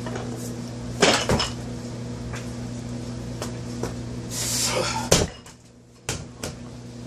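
Barbell loaded with bumper plates: a clatter of bar and plates about a second in as the lift is pulled, then the loudest thud just after five seconds as the bar is dropped from overhead onto the rubber floor, with two smaller bounces after it.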